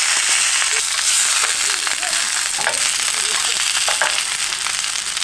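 Smoked maple bacon sausages sizzling steadily as they fry in a small square pan on a portable gas stove.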